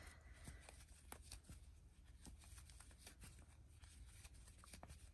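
Faint, irregular light ticking and rustling of a metal crochet hook pulling yarn through stitches.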